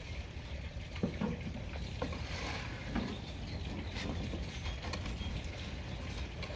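Knocks and clatter as a gas grill lid is lifted, then a wooden pizza peel scraping under a pizza in a firebrick oven on the grill grate, over a steady low rumble.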